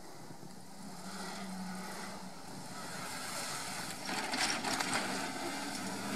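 Off-road 4x4's engine running some way off, slowly getting louder, with a spell of crackling noise about four seconds in.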